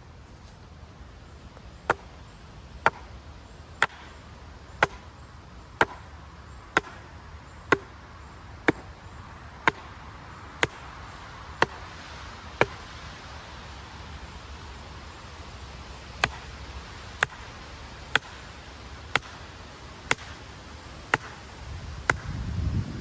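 Hammer driving a garden stake into the ground: steady sharp blows about one a second, eleven of them, then a pause of a few seconds, then seven more.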